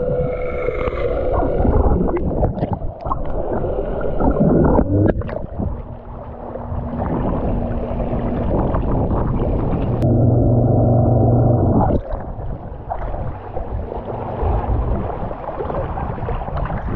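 Seabob underwater scooter's electric motor humming steadily, with water rushing and gurgling around it, muffled while underwater and splashing near the surface.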